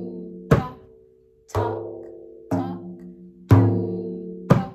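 Remo hand-held frame drum struck by hand, one stroke about every second. A deep, ringing bass stroke alternates with a shorter, sharper stroke, five strikes in all.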